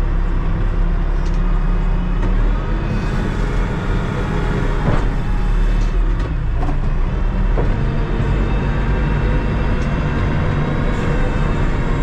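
Diesel engine of a Terex TLB-815 backhoe loader running under way, heard steadily, with the revs climbing a couple of times.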